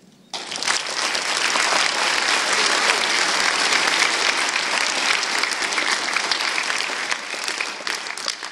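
Crowd applauding: many hands clapping, starting suddenly and thinning out near the end.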